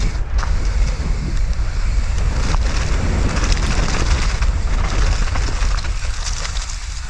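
Wind buffeting an action camera's microphone on a mountain bike descending a wet, muddy trail, a steady low rumble mixed with tyre noise and scattered rattling clicks from the bike.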